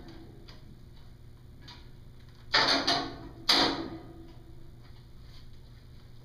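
Mechanical clunks and rattles of X-ray equipment being positioned: two loud knocks with short rattles about two and a half seconds in and one more a second later, with a few light ticks before them.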